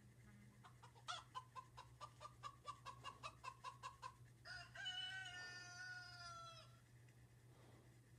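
Faint chicken: a fast run of clucks, about five a second for three seconds, then one long drawn-out call that falls slightly in pitch.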